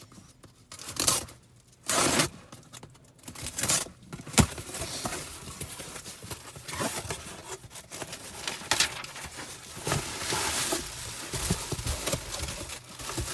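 A new car audio head unit being unpacked: its packaging handled and rustled in irregular bursts, with a few sharp knocks in the first few seconds.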